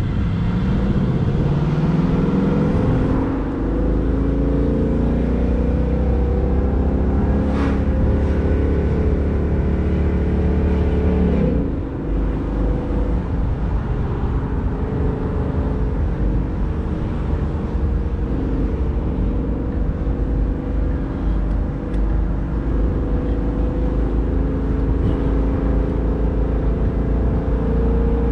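A 2019 Ford Mustang GT's 5.0 V8 driving along, heard from the open convertible cabin with wind and road noise. The engine note rises in pitch over the first few seconds and holds. It drops abruptly about twelve seconds in, runs on lower and quieter, then climbs again near the end.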